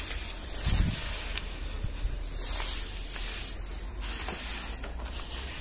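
A steady high-pitched hiss with a brief low thump just under a second in.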